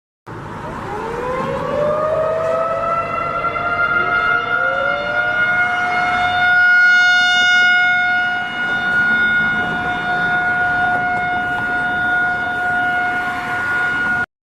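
Outdoor warning siren winding up: a few overlapping rising wails level off into one steady tone, which holds for several seconds and then cuts off abruptly near the end.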